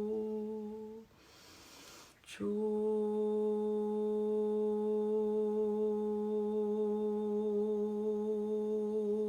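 A woman's voice humming a long, steady chanted note. About a second in it stops for an audible in-breath and a short click, then the note resumes and is held steadily.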